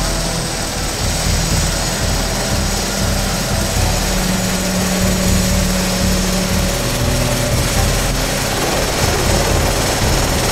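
Medical helicopter's turbine engines and main rotor running at power for lift-off: a steady rushing noise over the low, rapid beat of the rotor blades.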